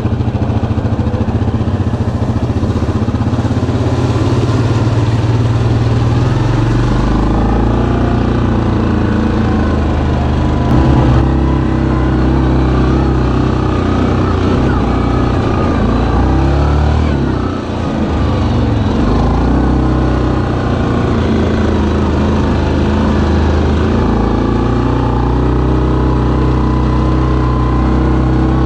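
2019 Yamaha Kodiak 700 ATV's single-cylinder engine running under way, its pitch rising and falling as the throttle changes. A brief knock about eleven seconds in.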